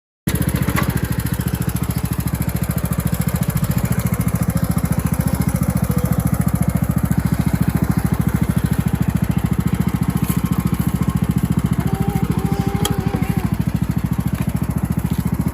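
Riding lawn mower engine running steadily, with an even rapid pulse.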